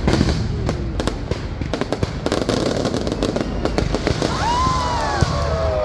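Fireworks display: a rapid, irregular run of bangs and crackles over a constant low rumble, with several wavering pitched sounds rising and falling near the end.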